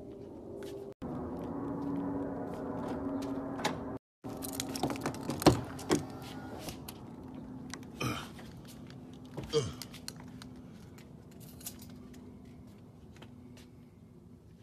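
Clicks and knocks from handling the phone and touching the truck's interior, a few of them sharper and louder, over a faint steady hum. The sound cuts out twice briefly at edits.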